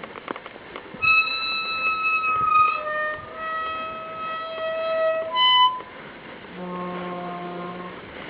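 A leaning stile squeaking as it is moved: a series of long, violin-like squeals, held and shifting in pitch from about a second in. A short higher squeak follows near the middle, then a lower, longer squeal near the end.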